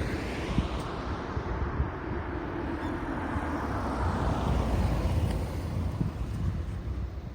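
Road traffic at an intersection: a vehicle drives past, its noise swelling about four to five seconds in, over a low wind rumble on the microphone.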